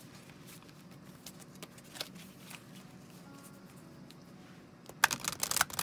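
Oracle cards being handled and shuffled: a few faint flicks, then a quick, loud burst of card riffling near the end.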